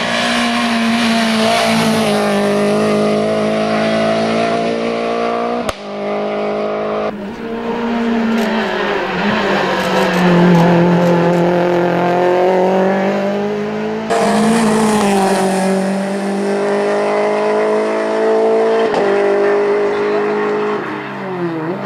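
Renault Clio Williams' 2.0-litre four-cylinder engine at racing revs under hard acceleration, its note rising and falling with throttle and gear changes. The sound jumps abruptly about six and fourteen seconds in.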